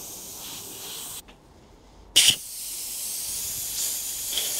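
Air hissing out of a punctured tubeless bicycle tyre as a plug tool is worked into the hole. The hiss breaks off about a second in, then a sharp click, and the hiss comes back and grows louder toward the end.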